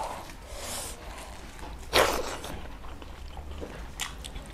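Close-miked eating sounds: soft chewing and fingers mixing rice and curry on a metal plate, with one short, sharp mouth or nose sound about two seconds in.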